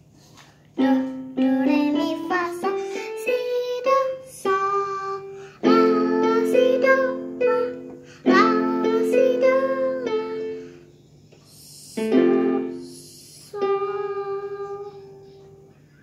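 Electronic keyboard played by a child working through a beginner practice piece. A rising run of single notes starts about a second in, followed by longer held notes and chords, with a short pause about three-quarters of the way through before the last few notes.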